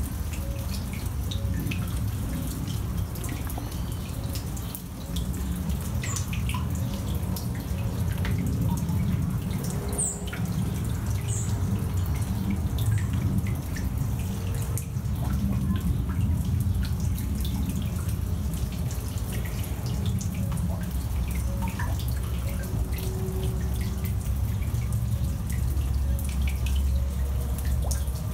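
Water dripping and trickling down a wet, layered varvite rock face into a shallow pool, with scattered drips throughout. A steady low rumble sits underneath.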